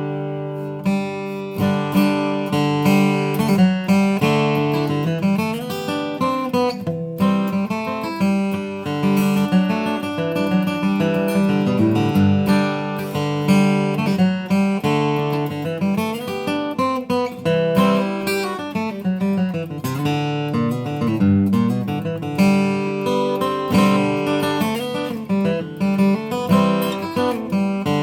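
Sigma SDR-28MLE dreadnought acoustic guitar, with a solid Adirondack spruce top and solid Madagascar rosewood back and sides, played bluegrass style: a steady run of picked notes mixed with strummed chords.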